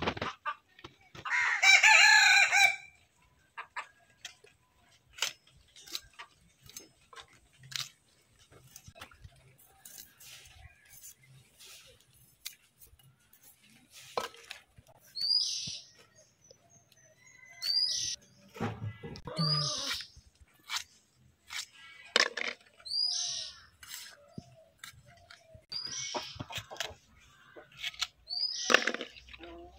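A rooster crows once, about a second in. Later a bird gives short, high calls every couple of seconds, over scattered light clicks and knocks.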